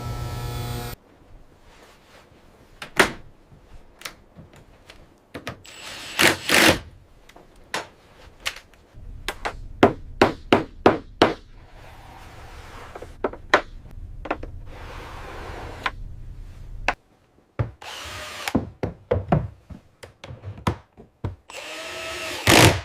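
Power tool run in a few short bursts among scattered knocks and thunks of work on fittings. A low steady hum sets in near the middle and cuts off suddenly.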